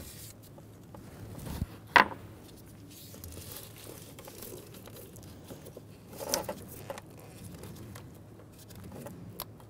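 Gloved hand rustling and fumbling among parts at the back of the intake manifold, with scattered light clicks. There is one sharp click about two seconds in and a short rattle of clicks around six seconds.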